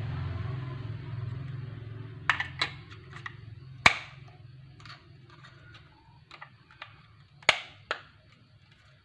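Plastic clicks and taps as a 9-volt battery is pressed into a hand-held radio transmitter's battery compartment and the plastic cover is snapped shut: about ten short clicks, two of them sharp, near the middle and about three-quarters through. A low hum fades out over the first few seconds.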